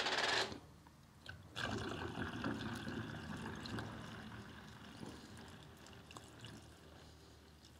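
A brief clicking rattle, then liquid interior cleaner poured from a plastic jug through a plastic funnel into a spray bottle: a steady trickle starting about a second and a half in and slowly fading.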